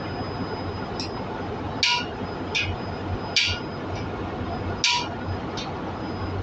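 Hammer blows on a steel valve-seat driver, knocking a new exhaust valve seat into its bore in the cylinder head. There are three heavy, ringing metallic strikes about a second and a half apart, with lighter taps between them.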